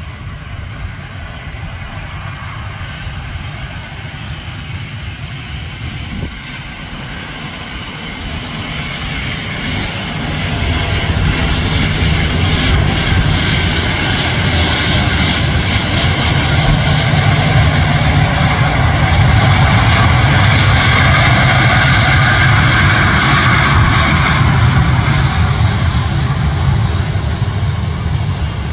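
Boeing 737-300's twin CFM56-3 turbofans at takeoff thrust as the jet makes its takeoff roll down the runway. The engine noise swells from about eight seconds in and stays loud, with a thin high whine over a deep rumble, easing slightly near the end as the jet moves away.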